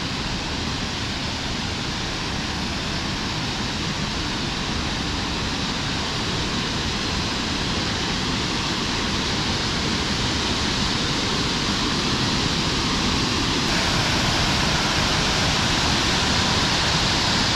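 Small waterfall pouring over a rock ledge: a steady rush of falling water that grows slowly louder, turning brighter and fuller about three-quarters of the way through.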